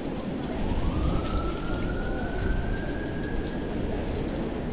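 Steady hiss of bicycle tyres on wet pavement and wind rushing past the moving bike, with a siren wailing slowly upward in pitch from about half a second in, fading near the end.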